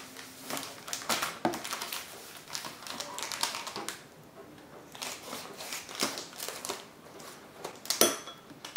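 Kitchen shears snipping open a packet of cheesecake mix, the packet crinkling as it is handled: a run of irregular clicks and rustles, with a louder crackle near the end.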